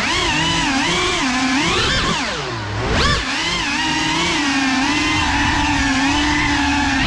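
FPV quadcopter's electric motors whining, the pitch rising and falling with the throttle. A little past two seconds in the pitch drops and the sound dips, then it jumps sharply just before three seconds and holds fairly steady after that.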